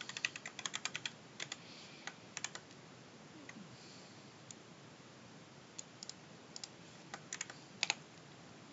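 Computer keyboard typing: a quick run of keystrokes for about two and a half seconds, then, after a pause, scattered single key presses.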